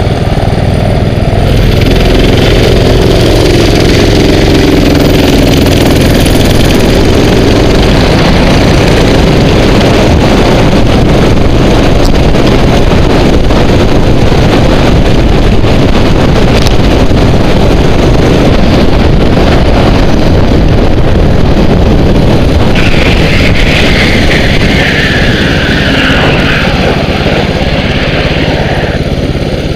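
Mini bike's small engine pulling away and running at riding speed, with heavy wind noise rushing over the helmet-mounted microphone.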